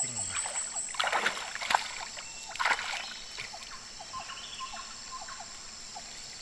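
River water splashing and sloshing as a gill net is hauled up by hand from shallow water, with louder splashes about a second in and again near three seconds.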